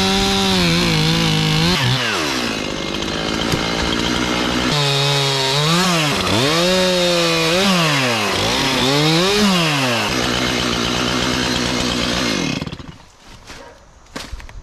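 Chainsaw running at high speed. It drops in pitch, then revs up and down several times as it cuts, and stops near the end.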